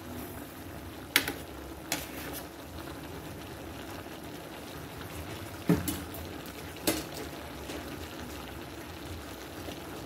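A pot of coconut milk with papaya bubbling steadily on the stove. Four sharp knocks come through, two in the first couple of seconds and two more past the middle.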